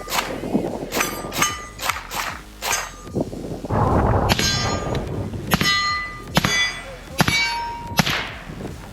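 Steel plate targets being hit by rounds in quick succession, each hit a sharp clang that rings on. About a dozen hits come in two runs, with a short pause near the middle.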